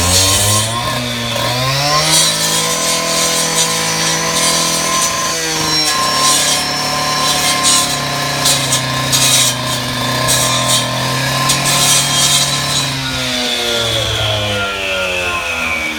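Power cut-off saw cutting into a masonry wall: the motor revs up over the first couple of seconds, runs at a steady high pitch under load with small dips and gritty cutting noise, then winds down over the last few seconds.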